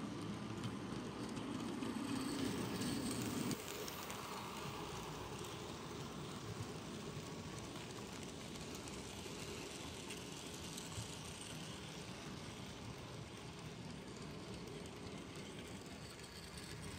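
OO gauge model goods wagons rolling along the track, their small wheels making a steady rumble and light clicking on the rails. The rumble is louder for the first three and a half seconds, then drops abruptly to a quieter, even rattle.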